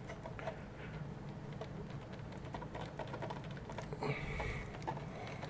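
Faint small clicks, taps and rubbing of fingers working a stiff push-on spade connector off the positive terminal of a small 12 V sealed lead-acid UPS battery, with a brief scraping rustle about four seconds in.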